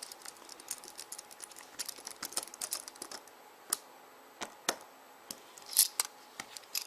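T6 precision screwdriver turning tiny screws into a BlackBerry 9650's plastic housing: irregular light clicks and ticks of the bit and tool, with a few louder taps near the end.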